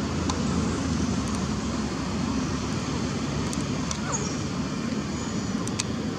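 Steady low rumbling background noise, with a few faint short high chirps.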